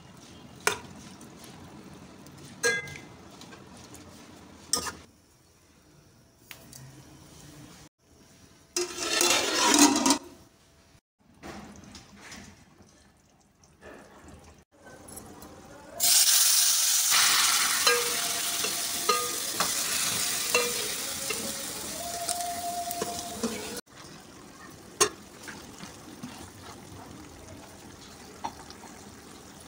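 A metal spoon clinking against a steel pot a few times as raw onions, tomatoes and spices are mixed. About sixteen seconds in comes a loud sizzle of mutton frying in masala, which lasts about eight seconds and stops abruptly.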